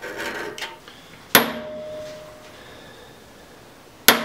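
Two hammer blows on a centre punch set on a block of 1060 carbon steel, punching the marked hole positions for drilling. The blows land about three seconds apart, and each leaves a ringing tone that fades over a second or so. A short scratching of a steel scribe on the block comes at the start.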